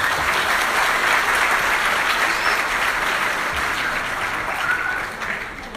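Audience applauding: a steady crowd of clapping that dies away near the end.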